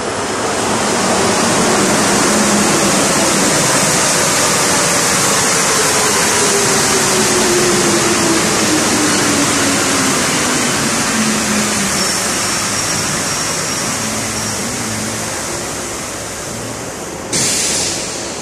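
Santiago Metro NS74 rubber-tyred train arriving and braking into the station: a loud rushing hiss, with a motor tone that falls steadily in pitch as the train slows. About a second before the end comes a short, sharp burst of hiss.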